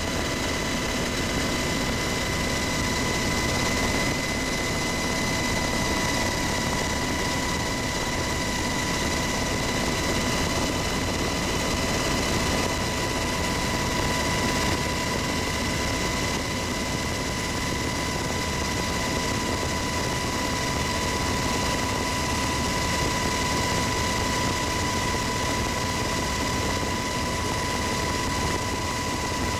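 UH-60 Black Hawk helicopter in flight, heard from inside the cabin: a steady engine and rotor noise with a constant high whine running through it.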